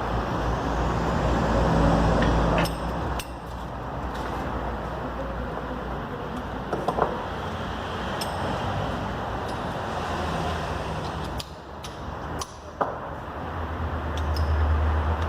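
Steady background rumble with a low hum, broken by several short clicks and knocks of hand tools as a pulley bolt is being torqued.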